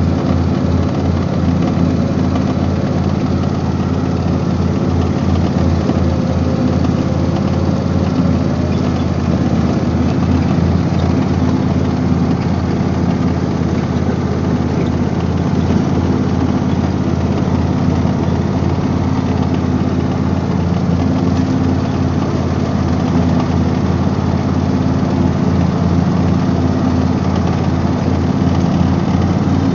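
Husqvarna YTH24V48 riding lawn mower running steadily with a rattling noise over the engine, which the owner thinks sounds like a bearing going out despite every grease point being greased. A regular pulsing beat runs under the engine note.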